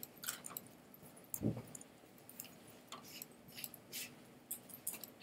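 Quiet, irregular clicking and tapping of a computer mouse and keyboard, with a soft low thump about one and a half seconds in.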